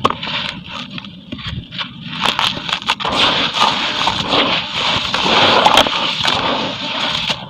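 Charcoal concrete crumbling in water: scattered sharp crackles and clicks at first, then from about three seconds in a dense, continuous crackle and fizz as it breaks apart.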